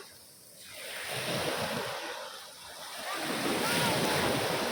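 Sea waves breaking on the shore, the wash of surf swelling and fading twice.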